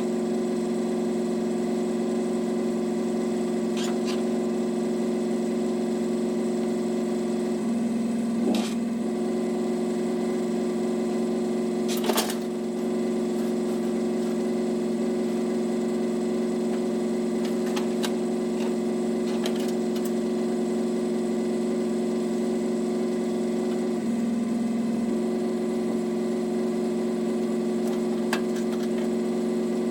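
An engine running steadily at a constant pitch, with a few brief knocks, the loudest about twelve seconds in.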